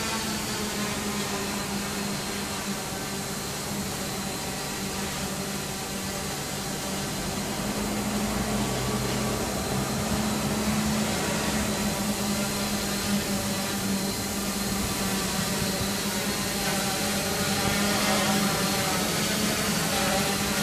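Quanum Venture quadcopter's brushless motors and propellers buzzing steadily in hover, the pitch wavering slightly with throttle corrections. It grows louder as the quadcopter comes close near the end.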